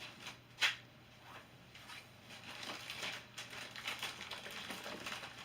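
Packaging being handled and turned over: faint rustling with scattered small ticks, and one sharp click or tap about two-thirds of a second in.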